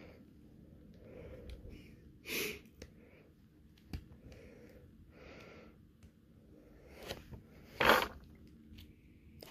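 Breathing and sniffing close to the microphone, the loudest puffs about two seconds in and near the end, with a few small clicks as the plastic action figure's parts are handled.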